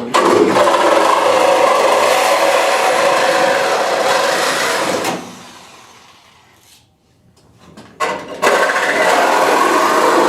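Power tool working on car body sheet metal. It runs for about five seconds, winds down to a stop, then starts again about eight seconds in.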